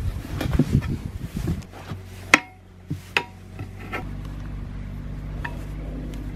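Steel tire lever prying the bead of an old, hardened tire off a steel wheel by hand. A cluster of low knocks and scuffs comes first, then a sharp metallic clink of the lever against the rim a little over two seconds in, followed by a few lighter clinks.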